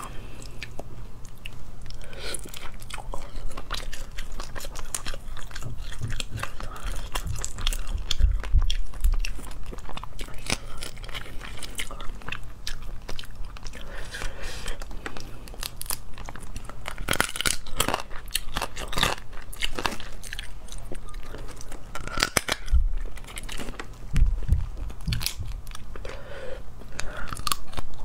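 Close-miked mouth sounds of biting and chewing, with crackling clicks of shells being cracked and pulled apart from shell-on sea crayfish in chili sauce. A few low thumps come in around the middle and again near the end.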